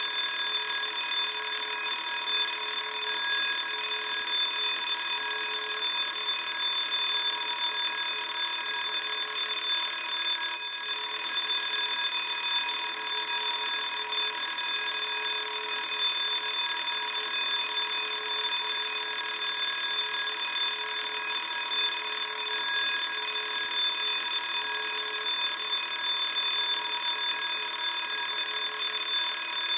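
Classic school bell ringing continuously: a loud, steady, unbroken metallic ring with no pauses.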